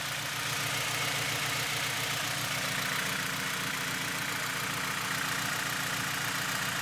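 Turbocharged 2000 Honda Civic EX's four-cylinder engine idling steadily, running very rich ("pig rich") even with the fuel map pulled to −100%.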